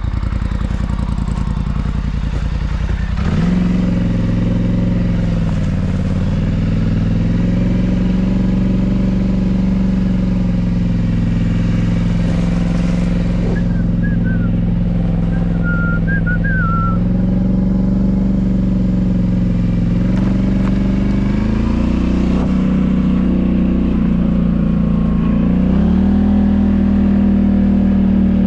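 ATV (four-wheeler) engine pulling away from idle about three seconds in, then running steadily at low riding speed, its note dipping and rising a couple of times with the throttle. A few faint high chirps come midway.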